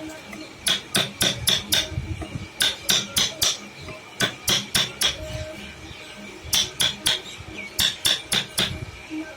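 Quick, sharp hammer taps on a wood-carving chisel, in bursts of four or five strikes with short pauses between them.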